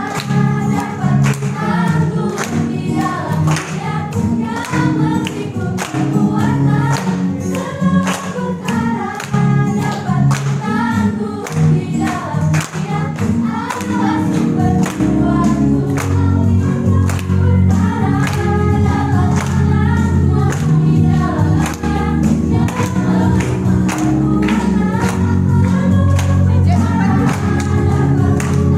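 A choir singing a Christmas gospel song with a band: bass, sustained chords and a steady beat.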